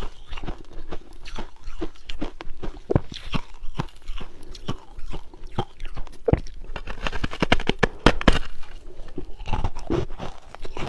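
A person biting and chewing refrozen ice, a continuous run of irregular crisp crunches that comes thickest about seven to eight seconds in.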